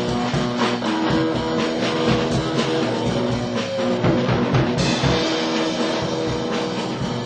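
Instrumental rock music: a steady drum-kit beat under guitar and held synthesizer notes.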